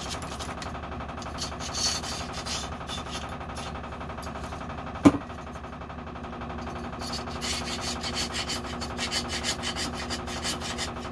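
Chainsaw guide bar clamped in a vise being rubbed down by hand: a scratchy back-and-forth scrubbing that turns into a fast, even stroke over the last few seconds. One sharp knock about halfway through.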